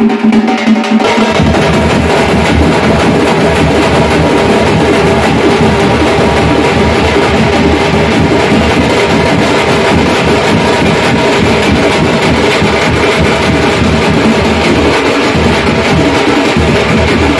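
Tamil village folk band in thaarai thappattai style playing loud, dense drumming with held notes sounding over it; about a second in the full band comes in over a low held tone.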